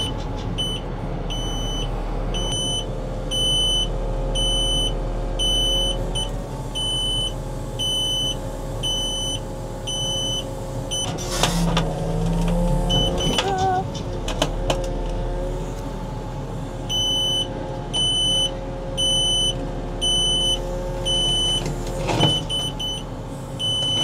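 JCB backhoe loader's engine running under load with a hydraulic whine as the machine lifts and pushes itself along on its excavator arm and front shovel in debog mode; the whine slides in pitch about halfway through. An alarm beeps rapidly and steadily for the first several seconds and again for several seconds near the end.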